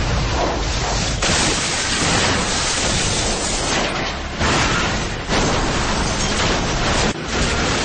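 Car crash noise: a loud, dense roar as a car flips over, jumping suddenly in level several times, about a second in, near four and a half seconds and again near five seconds.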